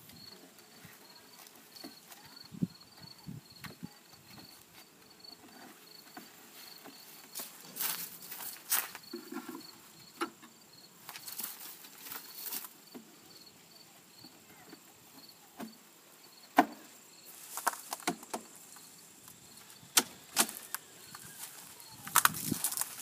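An insect chirping in a steady high-pitched rhythm, about two chirps a second, with scattered sharp knocks and rustles over it.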